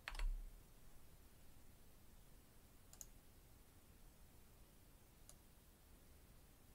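Near silence broken by a few computer mouse clicks: a sharper click with a low thump right at the start, then two faint clicks about three and five seconds in.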